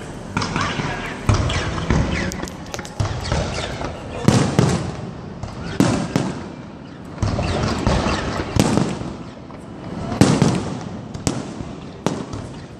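Aerial firework shells bursting in quick succession, about one heavy bang every second or so, with crackling between the bangs.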